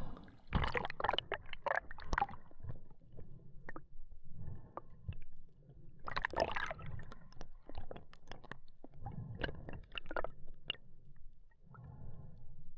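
Water sloshing and gurgling around a freediver's camera in irregular bursts, over a steady low rumble.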